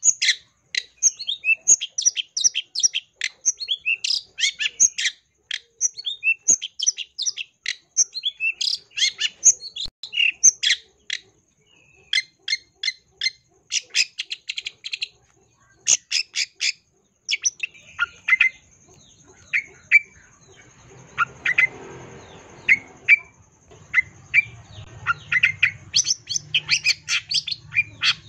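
Long-tailed shrike (cendet) singing in full voice: a fast, varied run of sharp chirps, whistles and trills, filled with mimicked calls of other birds, with a short pause near the middle.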